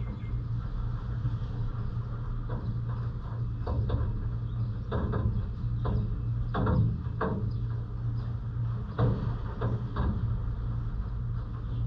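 Rainy city ambience: a steady low hum with water dripping, irregular taps coming every second or so and bunching into quick runs now and then.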